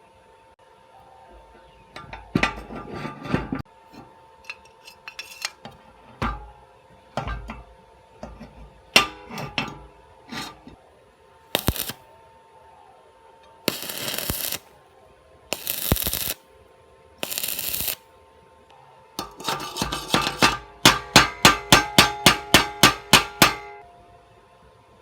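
Metal workshop handling: scattered clinks and knocks of metal parts, three short noisy bursts each about a second long, then a quick run of about a dozen ringing hammer blows on metal, roughly four a second, near the end.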